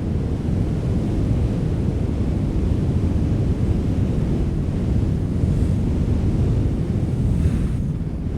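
Wind blowing steadily, a deep rushing sound with slight gusts.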